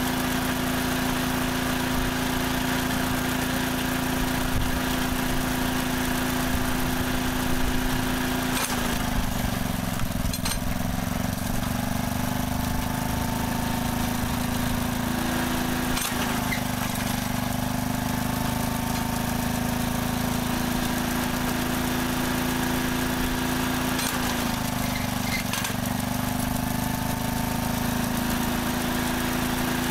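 Small stationary petrol engine running a homemade firewood processor, a steady hum whose pitch sags and recovers about three times as the engine takes load, with a few short knocks.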